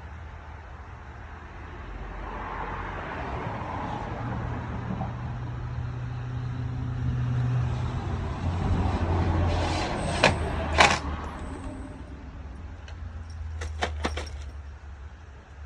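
A steady low rumble that swells over several seconds and then fades, with a few sharp clicks and knocks of door hardware being handled, two near the middle and a quick cluster near the end.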